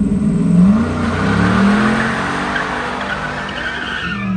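Pontiac Firebird doing a burnout: the engine is held at high revs, climbing about half a second in, while the rear tyres spin and squeal.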